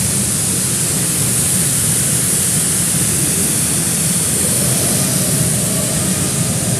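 Steady, loud rush of water from a pool waterfall splashing down.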